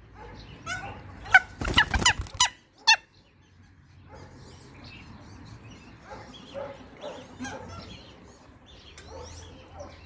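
Waterfowl and other farm birds calling in a scattered chorus, with a few loud knocks or rustles in the first three seconds.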